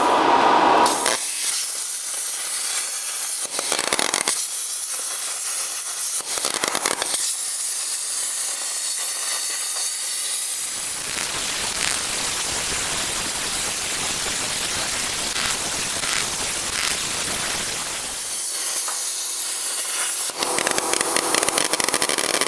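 Plasma cutter torch hissing steadily as it cuts steel sheet. The sound turns fuller and lower from about ten and a half seconds in until about eighteen seconds.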